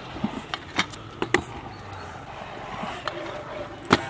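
Stunt scooters knocking and clacking: a quick string of sharp knocks in the first second and a half, then one louder knock near the end.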